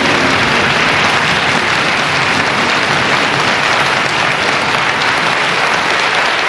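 Studio audience applauding, a dense, even clapping.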